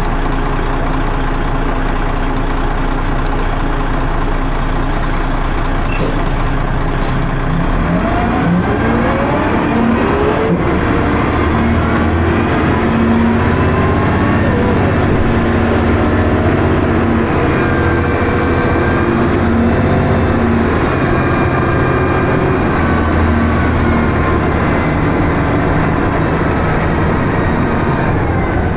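Dennis Arrow double-deck bus engine idling, then pulling away about eight seconds in, its pitch rising as it drives on through its ZF automatic gearbox.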